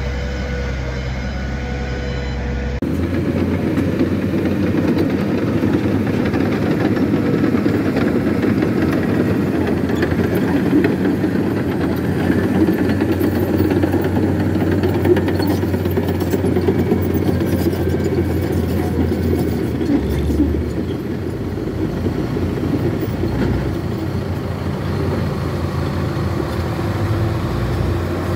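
Heavy diesel engines of a crawler bulldozer and a Hitachi excavator running under load. About three seconds in the sound changes to a louder, rougher engine noise, with some clanking in the middle stretch.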